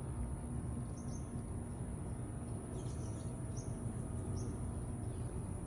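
Several short, high bird chirps, one about a second in and a cluster between about three and four and a half seconds, over a steady low rumble.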